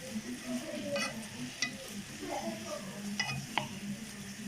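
Dried figs and garlic sizzling in olive oil in a pot as they are stirred, with four sharp, ringing clinks of a utensil against the pot.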